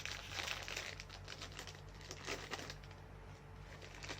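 Snack packaging crinkling and rustling as it is handled and opened, busiest in the first couple of seconds, then quieter.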